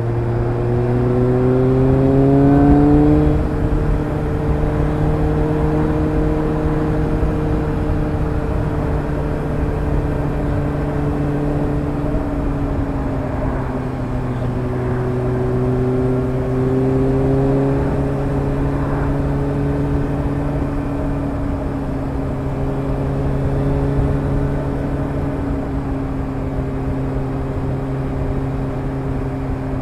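Suzuki GSR750's inline-four engine heard through a Fuel Diablo stainless round MicroMini exhaust with its dB-killer fitted, under way on the road. It accelerates with rising pitch at the start, then eases off about three seconds in with a drop in level. It carries on at a steady cruising pitch, dipping a little lower about halfway through.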